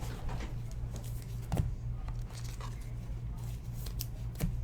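Trading cards and their packaging being handled: a few brief rustles and clicks, about a second and a half in and twice near the end, over a steady low hum.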